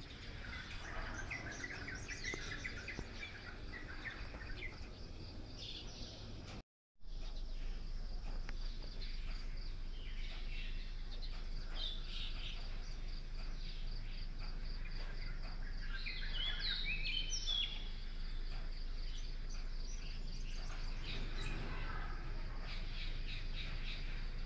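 Morning outdoor ambience: scattered bird chirps and calls over a steady background hiss, with a steady high insect trill. The sound cuts out completely for a moment about seven seconds in.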